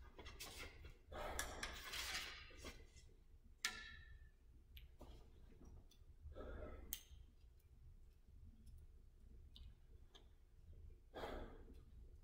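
Quiet breathing and sighing exhales from an archer between shots, with a few small sharp clicks as the arrow and release are handled; one click about three and a half seconds in rings briefly.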